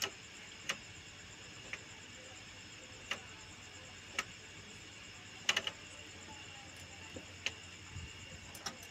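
Night insects, crickets, chirring steadily in a high-pitched drone, with a few scattered sharp clicks.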